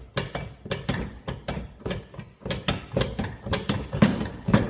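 Hydraulic shop press being worked to press a bearing into an electric hub motor's side cover. It makes a quick, even run of knocks, about three or four a second.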